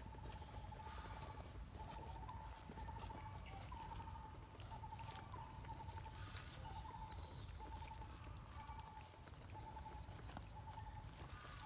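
An animal calling over and over in a faint outdoor background: short pulsing calls of one pitch, about one a second, with a brief high chirp about seven seconds in.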